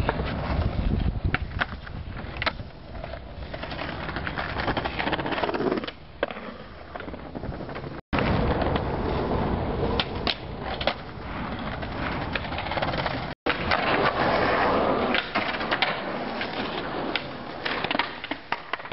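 Skateboard wheels rolling over concrete and paving, with several sharp clacks of the board popping, hitting the bench and landing during tricks.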